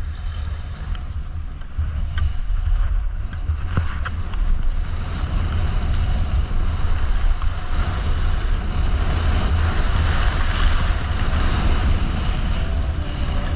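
Wind buffeting a helmet- or chest-mounted action camera's microphone during a downhill ski run, a heavy low rumble, with the hiss of skis sliding on snow that grows louder in the middle of the run. A few light clicks sound in the first few seconds.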